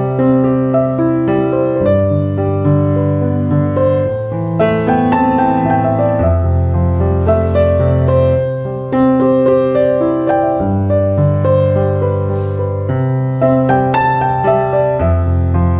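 Background piano music: a keyboard melody of short notes over long held bass notes.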